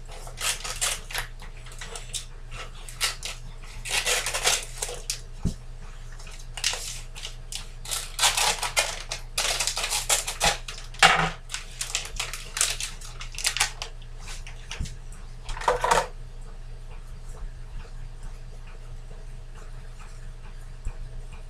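Plastic tofu tub and its torn film crinkling and rustling as a block of extra-firm tofu is worked out of the package by hand, in irregular crackly bursts that stop about 16 seconds in.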